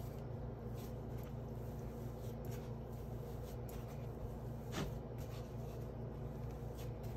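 Hands pressing, folding and patting soft shortcake dough on a floured wooden cutting board: soft, scattered rubbing and scuffing strokes, with one sharper tap about five seconds in, over a steady low hum.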